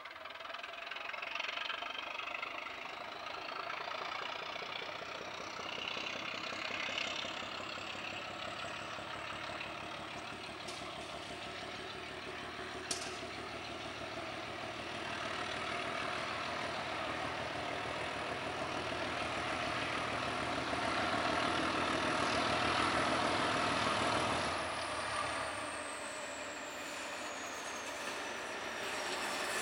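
ČD class 749 'Bardotka' diesel locomotive working hard as it pulls away with its train, the engine running loud with a high whine that climbs slowly in pitch. The engine gets louder in the second half, then eases off near the end as the whine falls away.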